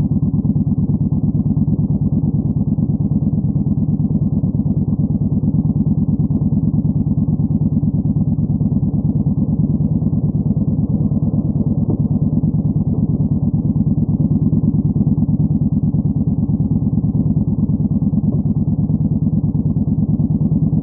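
Yamaha Bolt 950's air-cooled V-twin through a Vance & Hines Twin Slash staggered exhaust, idling steadily with an even, unchanging beat of firing pulses.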